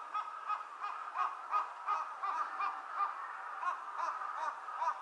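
Crows cawing, many short harsh calls repeating several times a second and overlapping one another.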